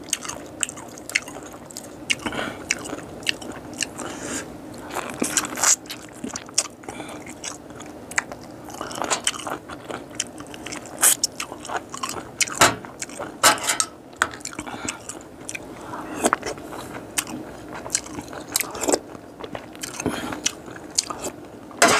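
A person chewing and biting boiled frog close to a clip-on microphone, with many short crunching clicks and wet mouth sounds.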